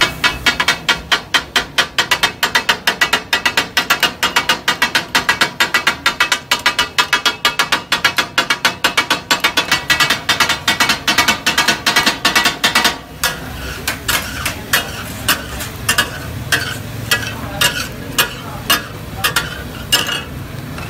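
Two flat steel blades rapidly chopping and clattering on a large iron tawa griddle, the kata kat (taka tak) chopping of offal and tomato, at about four to five strikes a second. About two-thirds of the way through, the strikes turn slower, sparser and weaker, over the food sizzling on the griddle.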